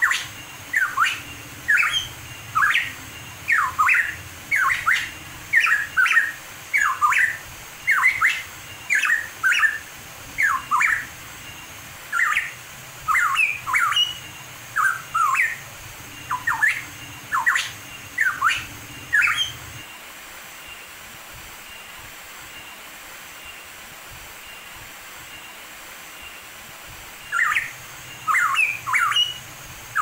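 Hooded pitohui calling: a quick series of short notes sweeping up and down in pitch, over a faint steady hiss. The calls stop about two-thirds of the way through and start again near the end.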